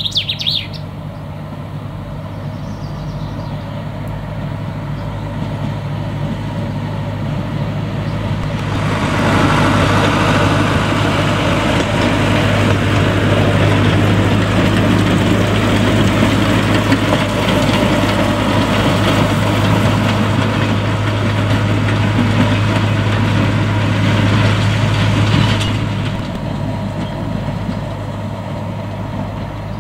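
Small diesel locomotive of a narrow-gauge peat railway running steadily past. Its engine hum grows louder about nine seconds in as it comes close, and drops again a few seconds before the end as it moves away.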